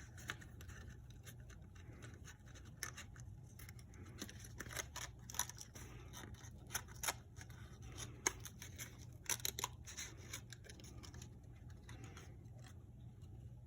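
Faint handling of thin cardboard pieces being slid onto one another's slots: scattered light scrapes, rustles and small taps.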